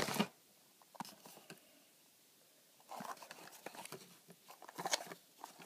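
Faint handling noises of cardboard diecast boxes and packaging: scattered soft taps, knocks and rustles, busier in the second half.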